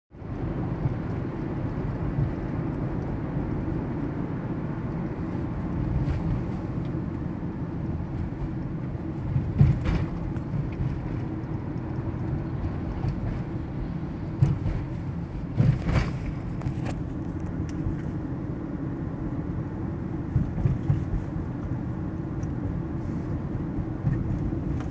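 Road and engine noise heard inside a moving car's cabin: a steady low rumble, with a few sharp knocks about ten and sixteen seconds in.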